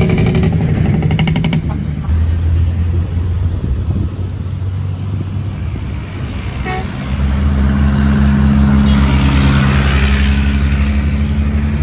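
Motor vehicle engine running as it drives along, with road noise; it grows louder and steadier about seven seconds in.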